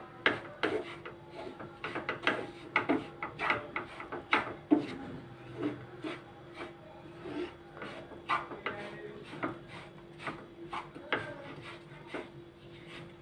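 Wooden spatula scraping and stirring crumbly gram flour (besan) roasting in ghee in a nonstick pan, in irregular strokes about once or twice a second. A faint steady hum runs underneath.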